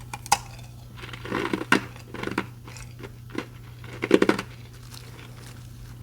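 Ice being bitten and chewed close to the microphone, a mix of restaurant ice and freezer frost. A sharp crack comes first, then irregular bursts of crunching, the loudest about four seconds in.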